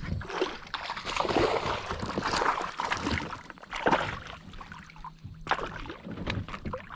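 Water splashing and sloshing against a kayak, with irregular knocks and rustles, as a hooked bass is brought in and landed.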